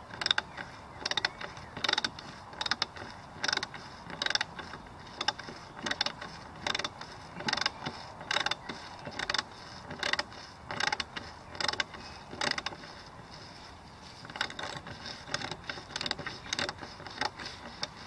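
Hand ratchet with a 10mm socket clicking in short repeated bursts as it is worked back and forth to back a bolt out.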